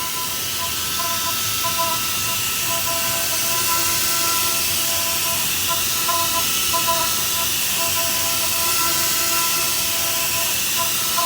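TARUS PMT 5-axis CNC milling machine milling: a steady hiss with three steady high tones from the spindle and cutter that keep dropping out and returning.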